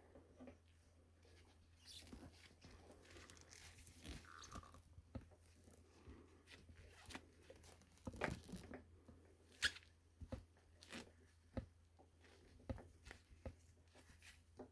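Faint scattered clicks and crackles of small parts and wires being handled at close range, a few sharper ticks among them, over a faint low hum.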